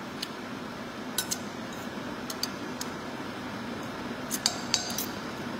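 A metal spoon clinking and scraping against a ceramic rooster-pattern bowl, about ten light clinks at uneven intervals, over steady room noise.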